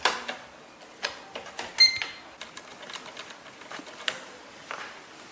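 Scattered clicks and knocks of exercise-bike parts being handled and fitted together, with a sharp click at the start and a short electronic beep about two seconds in.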